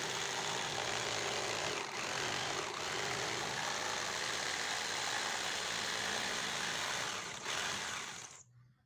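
Electric circular saw running with a steady whine, then stopping near the end.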